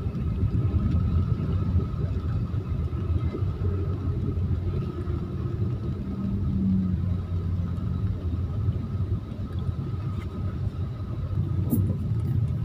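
Low, steady rumble of a car's engine and road noise heard from inside the cabin while creeping in stop-and-go traffic, with a couple of light clicks near the end.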